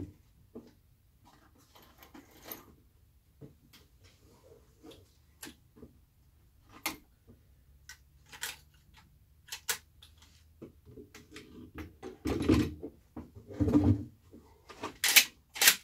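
Lever-action rifle being handled and loaded: a scatter of light metallic clicks and knocks, two heavier thuds, and two loud sharp metallic clacks near the end.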